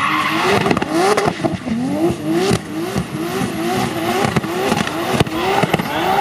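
Volvo 940 estate with a swapped-in Toyota 2JZ straight-six, drifting in tight smoky circles. The engine surges up in pitch again and again, about twice a second, over the hiss of spinning rear tyres, with a few sharp pops.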